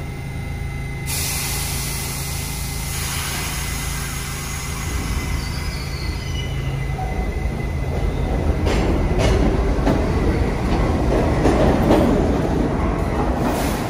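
New York City subway train running along the track with a steady motor hum and a thin metallic wheel squeal, the rumble growing louder in the second half.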